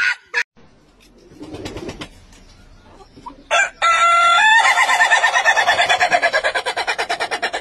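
Rooster crowing: a few short notes about three and a half seconds in, then one long crow with a rapid, even pulsing that is still going at the end.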